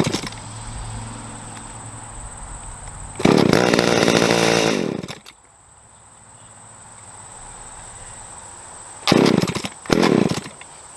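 Jonsered 520SP two-stroke chainsaw engine catching for about two seconds, then dying away with falling pitch. Near the end come two more short bursts as it tries to start again. The saw is being starved of fuel: the top cover had pinched the fuel line.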